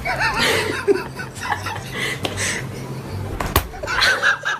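A person laughing, with sharp smacks near the start, about a second in and about three and a half seconds in, over background music with a low bass line.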